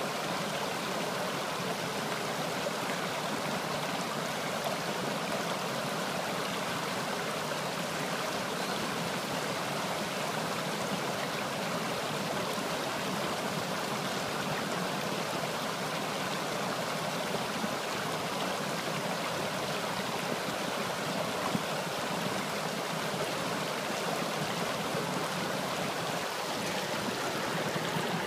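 Shallow man-made stream rushing and splashing over rocks, with a small waterfall feeding it: a steady rush of water.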